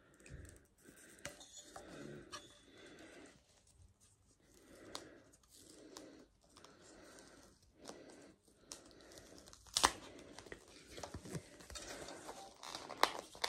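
A sticker being picked at and peeled off a new drinking cup: faint, irregular scratching and tearing rasps with short pauses, and one sharp click about ten seconds in.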